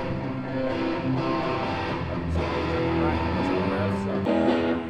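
Music led by strummed guitar chords, the chords changing every second or so over a low bass.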